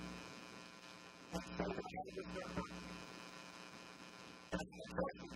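Steady electrical mains hum in the recording, a buzz with a long row of evenly spaced overtones. A voice talks over it briefly, about a second in and again near the end.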